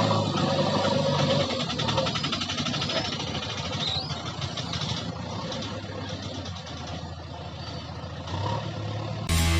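Heavy diesel engine running steadily at first, then rougher and gradually quieter. Music starts just before the end.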